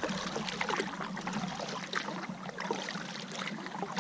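Kayak paddle strokes in lake water: the blades dipping and pulling through the water with splashing and a patter of drips off the blades.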